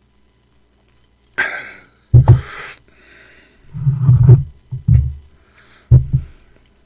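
A man's breathy exhale, followed by four short, low throaty sounds, just after a swallow of drink.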